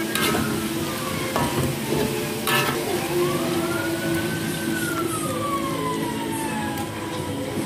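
A metal spatula scrapes and clanks against a steel wok while the banana blossom stir-fries with a sizzle. Midway, a long whine rises and then falls in pitch, like a siren.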